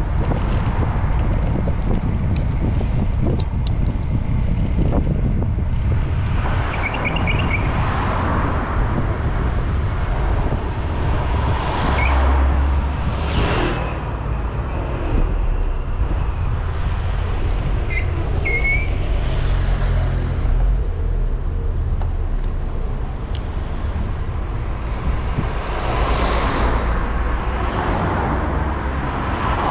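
City road traffic heard from a moving bicycle: cars and other vehicles passing, over a steady low rumble of wind and road noise on the bike-mounted action camera. Short high chirps come twice.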